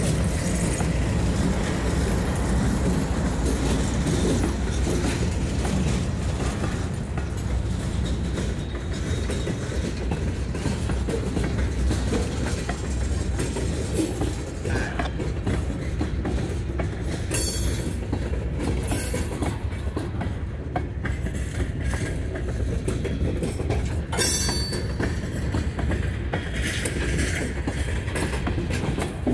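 Freight train cars rolling past close by: a steady heavy rumble with the clatter of wheels on the rails. A locomotive's diesel engine drones under it for the first few seconds and then fades. Twice, about halfway through and again later, there is a brief high-pitched wheel squeal.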